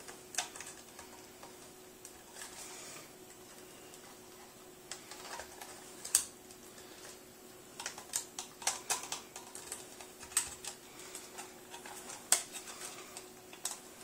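Small screwdriver prying at the snap tabs of a plastic dishwasher control-module housing: scattered sharp plastic clicks and taps, more frequent in the second half, with the loudest snap about twelve seconds in.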